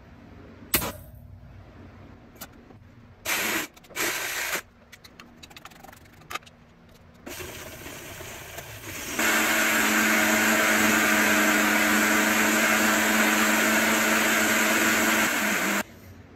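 Countertop blender puréeing tomatoes, vegetables and olive oil into gazpacho. It starts with two short pulses of the motor about three and four seconds in and a quieter stretch of running. Then it steps up to a loud, steady run for about six seconds and cuts off suddenly.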